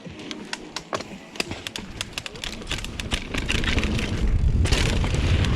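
Mountain bike riding a dirt trail: many quick clicks and rattles from the bike over the ground, then about four and a half seconds in a louder steady rumble of tyres and wind on the microphone as speed builds.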